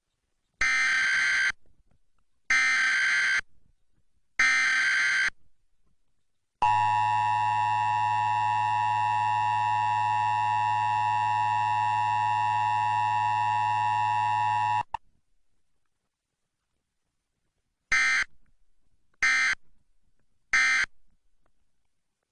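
Emergency Alert System test tones: three bursts of the harsh digital SAME header, then the steady two-tone attention signal for about eight seconds. Three short end-of-message bursts follow, and no spoken message comes between the tones.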